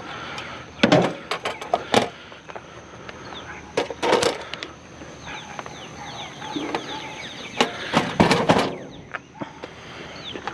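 Scrap being picked through and tossed aside in a junk pile: several clattering knocks and clunks of plastic and metal pieces, loudest about a second, four seconds and eight seconds in. Between the knocks, short bird-like chirps over a faint steady high tone.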